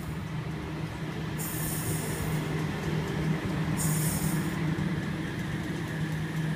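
Sydney Trains Oscar (H-set) electric train running in along the platform, a steady low hum that grows louder as the cars pass. Two brief high-pitched bursts come about a second and a half and four seconds in.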